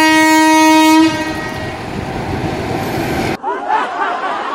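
Electric locomotive's horn blowing one loud blast of about a second, followed by the freight train's rumble and wheel clatter. About three and a half seconds in, the train sound cuts off abruptly and an edited-in laugh-like sound effect with wavering pitch takes over.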